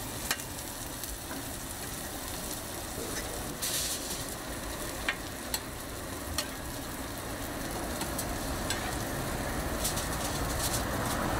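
Cabbage-and-egg omelettes and slices of bread sizzling steadily in oil on a flat-top griddle. Now and then comes the sharp click and scrape of a metal spatula on the griddle, several times near the end.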